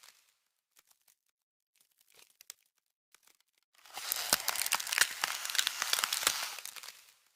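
Ice-freezing sound effect: a few scattered sharp crackles, then from about four seconds in a dense crackling that swells and fades away near the end.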